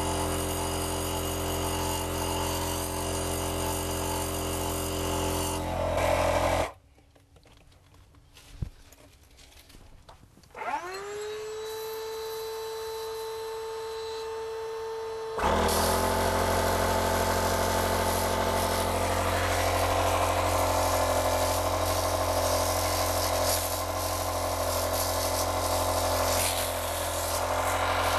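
Electric kite pump blowing drilling dust out of a hole drilled in a concrete slab, its motor running with a steady hum. It cuts off about six and a half seconds in. It starts again with a rising whine about ten seconds in, settles to a steady tone, and runs louder and fuller from about fifteen seconds on.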